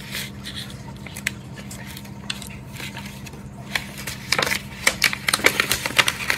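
Hand-handling of tumbled, polished stones and their wrapping: small hard clicks and rustling, scattered at first and growing into a busy run of crinkles and clicks in the second half.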